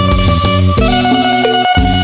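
Instrumental music: a plucked phin, the Isan lute, playing a melody over held tones and a steady low beat.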